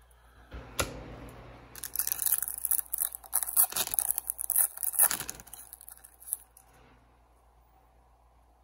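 Foil trading-card pack wrapper being torn open and crinkled, a crackly tearing that lasts about three seconds and then tails off.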